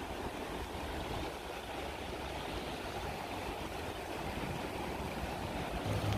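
Fast, swollen river rushing beneath a footbridge, a steady even noise of churning water.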